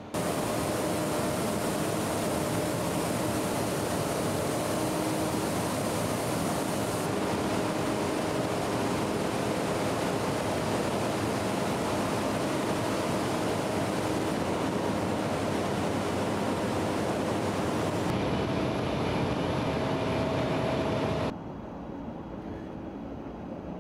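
Steady loud roar of running machinery with faint steady hums in it. Near the end it drops suddenly to a quieter steady background hum.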